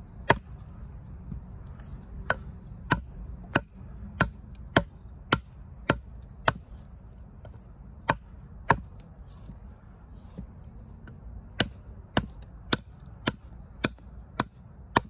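Fixed-blade bushcraft knife with a 5.6-inch D2 steel blade chopping into a hard branch laid on a stump: sharp woody chops a little under two a second, with a short pause about halfway.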